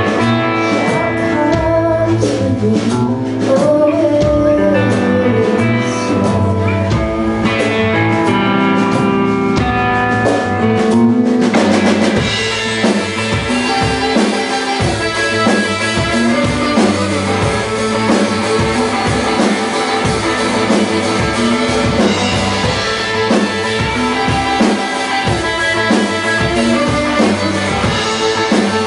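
Live band playing a song with drum kit, guitar and a singer. About twelve seconds in the sound grows fuller, with more high-end sound from then on.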